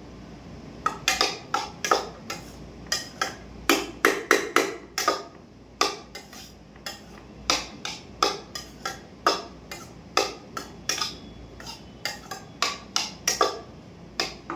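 Metal spoon clinking and scraping against a steel pan while stirring soya chunks, in quick irregular strikes with a short lull about six seconds in.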